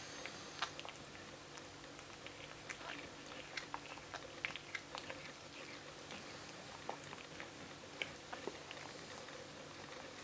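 Mother cat licking her newborn kitten: faint, irregular wet licking and smacking clicks.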